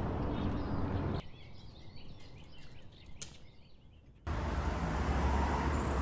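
Outdoor sound in short clips cut together: a low rumble, then a quieter stretch of faint bird chirps for about three seconds, then the low rumble again, louder.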